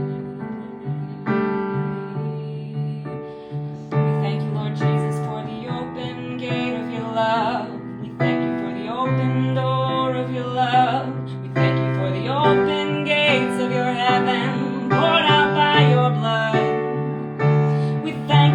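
Slow worship music: keyboard or piano holding sustained chords, with a voice singing a wordless melody over them from about four seconds in.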